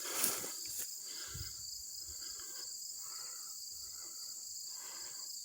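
Insects, likely crickets, chirring steadily in a high pitch.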